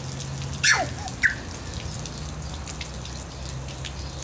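Water from a small lawn sprinkler spraying and pattering onto wet concrete, with a steady low hum underneath. A little under a second in, a short high squeal drops quickly in pitch, followed by a brief chirp.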